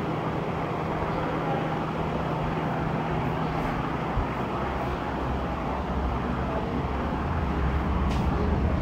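Steady background rumble and hiss with a low hum, growing a little louder and deeper near the end.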